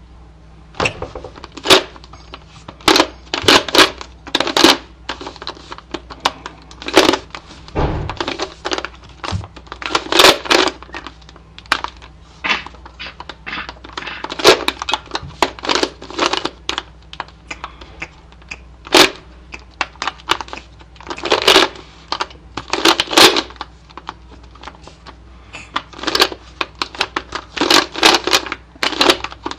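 A Rubik's cube being turned quickly by hand: runs of sharp plastic clicking and clacking as the layers snap round, in bursts with short pauses between them.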